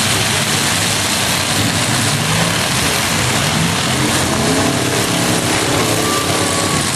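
Demolition derby trucks' engines running and revving together: a loud, continuous mix of engine noise, with some wavering pitched sounds about midway.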